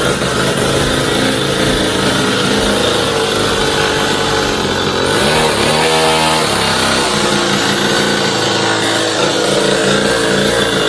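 Cobra mini dirt bike's small engine running loudly, its pitch shifting up and down under the throttle about halfway through.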